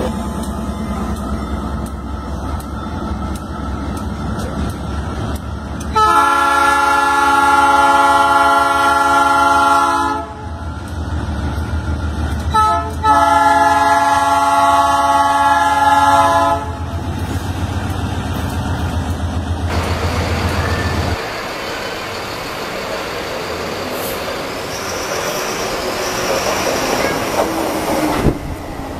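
Diesel freight locomotive rumbling as it approaches a grade crossing, sounding its multi-note air horn in two long blasts of about four seconds each with a brief toot between them. About two-thirds of the way through, the sound changes to the steady rolling noise of a passing passenger train.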